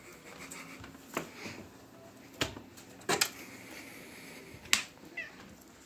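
Sharp clicks and taps of a small fetch toy and a cat on a hardwood floor during play, about four of them spread over a few seconds, the loudest near the end.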